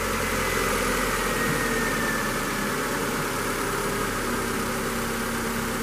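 Mitsubishi 4G18 1.6-litre inline-four running at a steady idle a few seconds after starting, heard from over the open engine bay.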